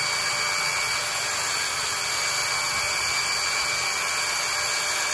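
HGP 220 V electric concrete chainsaw with a diamond-segment chain, cutting through a concrete block: a steady, high-pitched whine and grinding.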